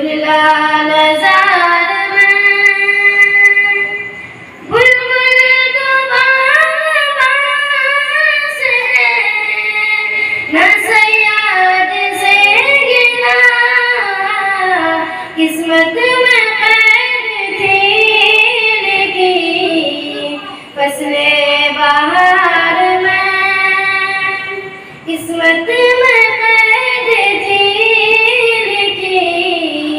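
A girl singing a naat, an Islamic devotional hymn, solo, in long, held and ornamented phrases with short breaks for breath between them.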